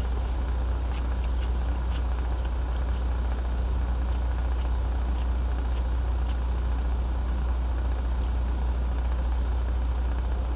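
Idling semi-truck diesel engine heard inside the cab: a steady low hum that does not change, with a few faint chewing and mouth clicks over it.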